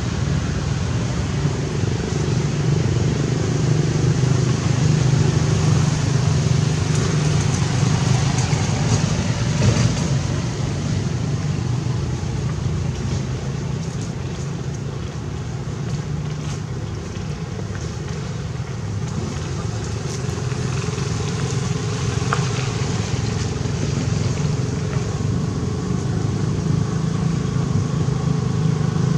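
Steady low hum of motor-vehicle engines, like road traffic, swelling and easing slowly in loudness.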